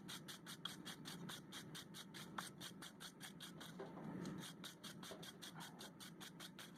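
Wire brush scrubbed rapidly back and forth over a freshly forged steel bottle opener, about six even strokes a second, cleaning the forge scale off the metal.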